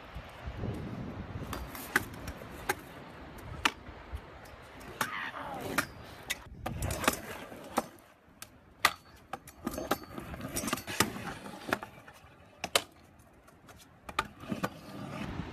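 Stunt scooter riding on rough concrete: the wheels rumble as they roll, with a dozen or so sharp clacks spread unevenly through the stretch as the deck and wheels land on and strike the concrete.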